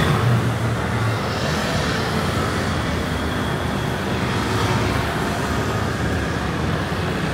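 Street traffic: motor scooters and cars passing, with a steady low rumble of engines.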